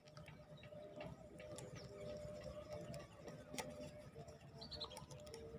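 Faint underwater ambience: scattered sharp clicks and crackling over a low rumble, with a faint steady hum.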